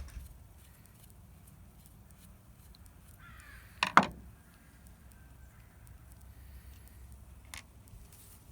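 A single loud, harsh animal call about four seconds in, against faint background and a few small clicks.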